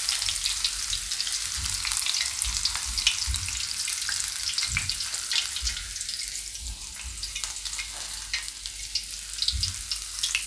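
Chopped green chillies sizzling and crackling in hot oil in an iron kadai, held in a wire-mesh strainer. With the gas turned off they are finishing in the oil's stored heat, and the sizzle thins out over the second half. A few soft low knocks come through under it.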